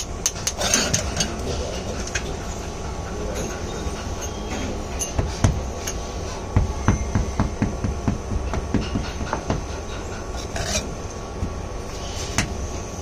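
Sharp metal taps and knocks as metal moulding flasks and pattern plates for sand casting are handled and tapped in the moulding sand. The knocks come in quick clusters, densest in the middle, over a steady low rumble.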